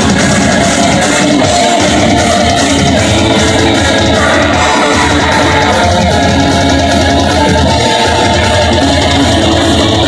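Live punk band playing loud: distorted electric guitars, bass guitar and a drum kit together, amplified through stage amps.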